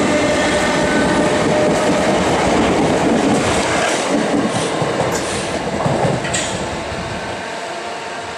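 Class 455 electric multiple unit accelerating past at close range: steady wheel-on-rail rumble with a faint whine, and a few sharp wheel clacks about halfway through as the last carriage goes by. The sound then fades as the train draws away.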